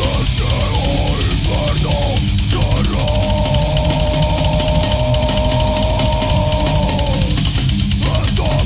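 Loud death crust metal from a band: distorted guitar over dense drums, with a moving riff that settles about three seconds in onto one long held note for about four seconds before the riff moves again near the end.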